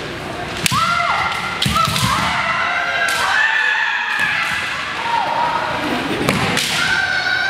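Kendo fighters' kiai, long high-pitched yells held and bending in pitch, broken by about four sharp cracks of bamboo shinai strikes and stamping feet on a wooden gym floor.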